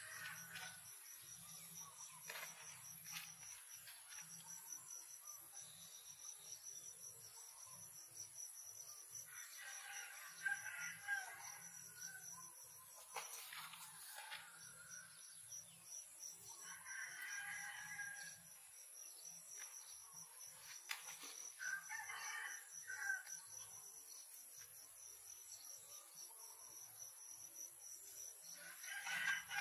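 A rooster crowing faintly about four times, each crow lasting a second or two, over a steady high-pitched drone of insects.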